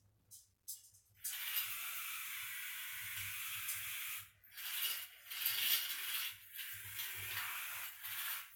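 A loud, steady hiss begins about a second in, then turns rougher and uneven, with short rushes and brief gaps.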